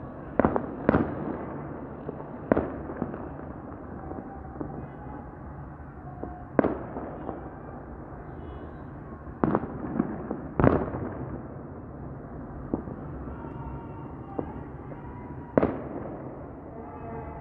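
Fireworks going off: sharp bangs at irregular intervals, about eight in all, over a steady background noise.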